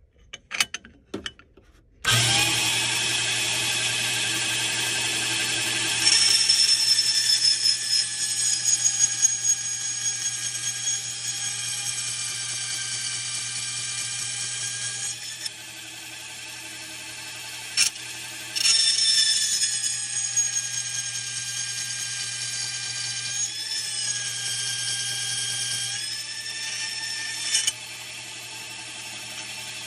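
Mini bandsaw switched on about two seconds in and running with a steady whine. Its blade cuts through heavy metal silverware with a high scraping screech in two passes, easing off to the running whine for a few seconds between them.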